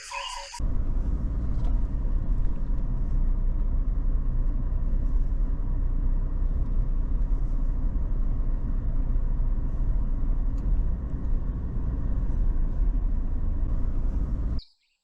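A car on the move: a loud, steady low rumble of vehicle and road noise that cuts in just after the start and stops abruptly near the end.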